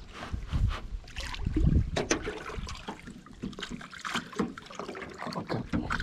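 Water splashing and trickling at the side of a small aluminum boat, with irregular knocks and thumps on the hull, as a hooked bass is grabbed at the gunwale and lifted aboard.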